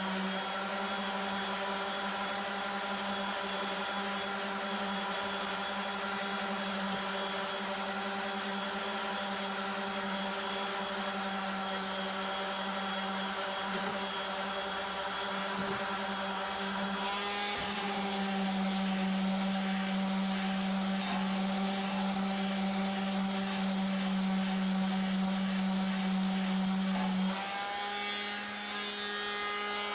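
A power sander running steadily while sanding dried body filler flat on sheet metal, with gritty rubbing over its motor whine. The pitch changes about 17 seconds in and again near the end, with a brief drop in level just before it picks back up.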